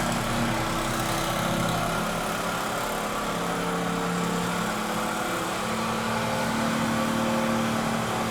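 An engine running steadily, its pitch shifting up and down a little.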